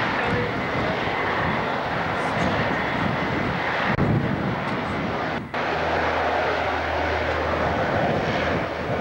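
De Havilland Canada Dash 7's four turboprop engines running at high power on the takeoff roll: a steady, loud rush of propeller and engine noise. About five and a half seconds in it briefly drops, then carries on with a low steady hum underneath.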